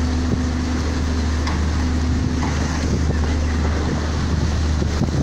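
Crab fishing boat's engine running with a steady low drone, with wind buffeting the microphone.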